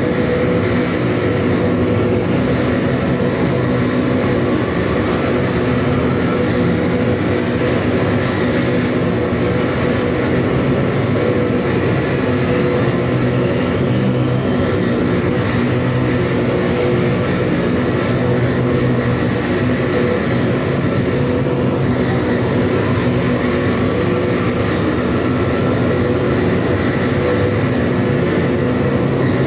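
Live electronic noise music: a dense, unbroken wall of distorted noise over steady low droning tones, loud and unchanging throughout.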